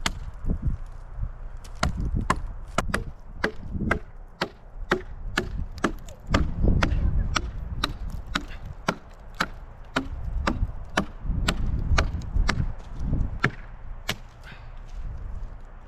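Hatchet or axe chopping firewood: sharp, repeated strikes into wood, about two a second, somewhat uneven.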